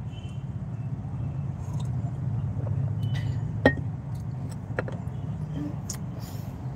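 Steady low background hum with a few sharp, light clicks and clinks scattered through it, the loudest a little past the middle.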